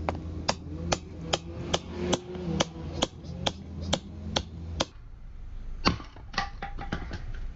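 Wood being chopped: a steady run of sharp strikes, about two a second, over a low hum. After a short pause about five seconds in, a louder knock and a quick cluster of knocks follow, the wood hitting the ground at the end.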